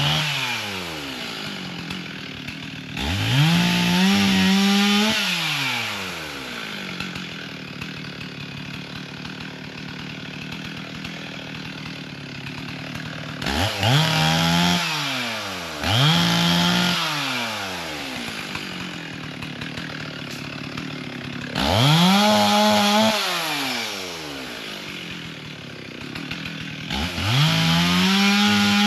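Two-stroke chainsaw revved up to full throttle for a couple of seconds at a time, five times, dropping back to idle between revs.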